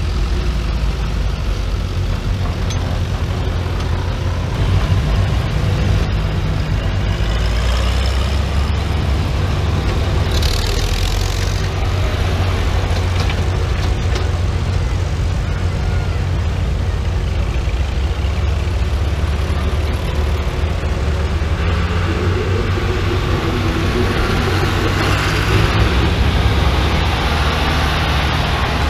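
Engines of several vintage farm tractors running as they drive past one after another, a steady low rumble that swells near the end as one passes close.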